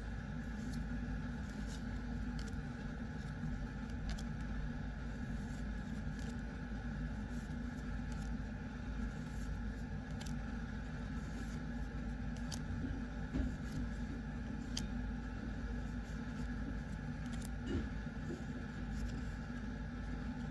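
Steady low hum with scattered faint clicks and rustles, the handling of trading cards and booster pack wrappers.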